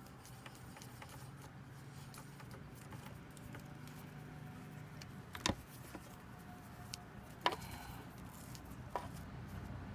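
Faint clicks and taps of a metal handlebar clamp being handled and fitted by hand onto a motorcycle's top triple clamp, the sharpest about halfway through and again a couple of seconds later, over a low steady hum.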